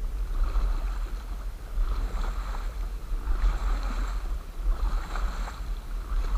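Water splashing and lapping around a small boat on a river, swelling every second or two, with wind rumbling on the microphone.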